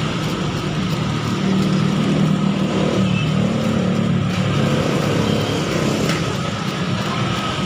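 A motor engine running steadily, swelling a little in the middle, with a few faint high chirps over it.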